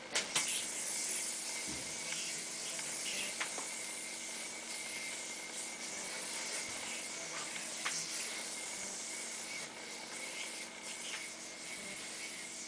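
A yoyo spinning on its string as tricks are played, giving a steady hiss with the string rubbing. A few sharp clicks come as the yoyo is caught and snapped onto the string.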